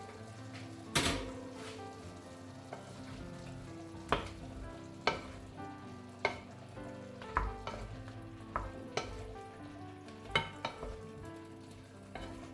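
Food sizzling in a frying pan while being stirred, with sharp taps of a utensil against the pan every second or so, the loudest about a second in. Soft background music plays underneath.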